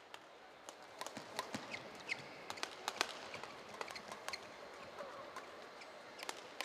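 Badminton rally: sharp racket strikes on the shuttlecock and short shoe squeaks on the court mat, over a steady arena background murmur.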